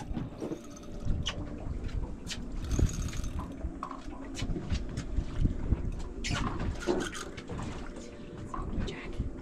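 Water sloshing and lapping against the hull of a drifting boat, over a low rumble, with scattered sharp clicks and knocks.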